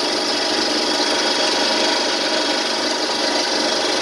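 LA155F30 CNC lathe running steadily while machining a brass bushing: an even machine noise with several faint, constant whines.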